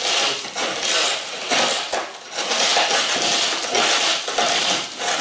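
Broken windshield glass crunching and crackling as it is broken and pulled away with tongs, with small glass fragments clinking. The crackling comes in irregular bursts throughout.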